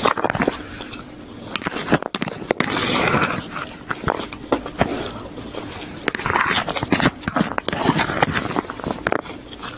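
Close-miked eating sounds: wet chewing and lip smacking over mouthfuls of yellow rice, full of sharp clicks, with two louder stretches of chewing about three and six seconds in.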